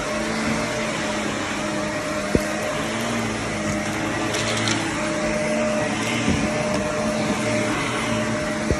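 Shark vacuum cleaner running steadily on carpet, a constant motor hum and rush of air, with a sharp click about two seconds in and another near the end.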